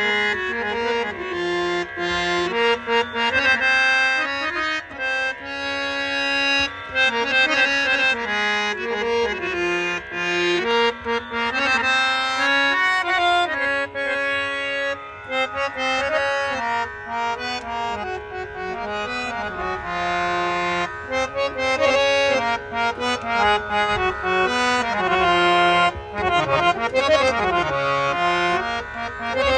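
Harmonium playing a melody in sustained, reedy notes over a steady held drone.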